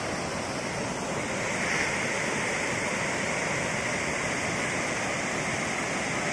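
Steady rush of running water, a little louder from about a second and a half in.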